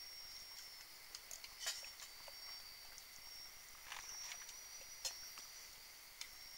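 Faint night insect chorus of steady high-pitched trilling, with a lower steady tone beneath. Scattered small clicks and taps break through it, the loudest about a second and a half in and again around four and five seconds.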